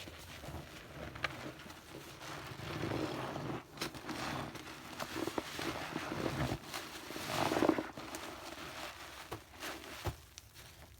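Crackling and popping of a bathroom cleaning product, with a dense patter of small clicks that swells louder twice.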